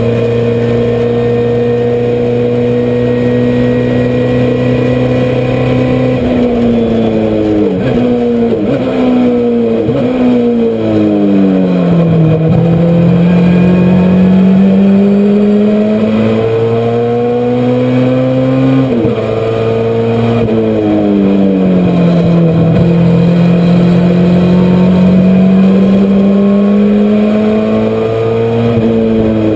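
Honda CRX race car's four-cylinder engine heard from inside the car at racing speed. It holds steady at high revs, falls in pitch in steps about six seconds in as the driver brakes and downshifts, then climbs back up through the gears. It dips again around twenty seconds in and rises near the end.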